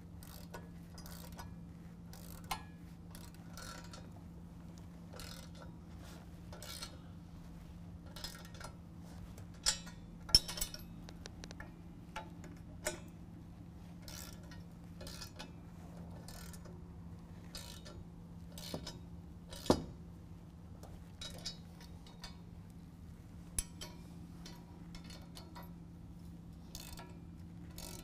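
Ratcheting wrench tightening hex bolts on a steel snowplow push frame: scattered metallic clicks at an uneven pace, with a few sharper knocks of metal on metal, over a steady low hum.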